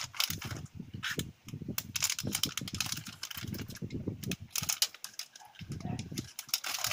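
Foil pouch of a Polaroid Color 600 film pack crinkling as it is torn open and handled, a rapid, irregular run of sharp crackles with duller handling noise underneath.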